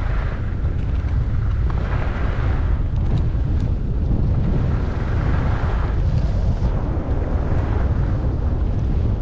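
Wind buffeting the microphone of a camera carried by a skier on a downhill run, a steady low rumble. Over it, a hiss of skis sliding on snow swells up a few times, at about two seconds in and again around five to six seconds.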